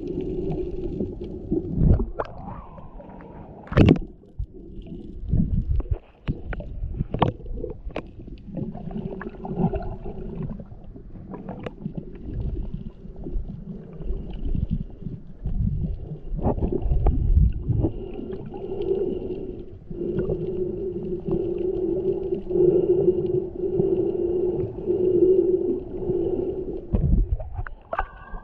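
Muffled underwater sound picked up by a GoPro action camera in its waterproof housing while snorkeling: low rumbling water movement broken by sharp knocks, with a steady hum that swells and fades about once a second in the second half.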